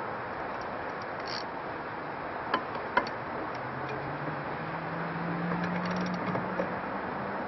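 Wrench tightening the steering-wheel nut onto its shaft, with two sharp metallic clicks about halfway through, over steady background hiss; a faint low hum rises slightly in the second half.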